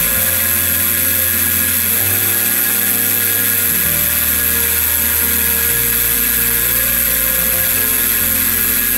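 Background music with a slow bass line changing note every couple of seconds, over a steady high hiss and whine from a vertical milling machine cutting a slot in a metal pin with mist coolant.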